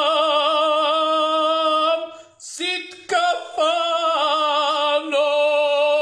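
A voice singing unaccompanied: one long held note with vibrato, a short break about two seconds in, then more long held notes that shift a little in pitch.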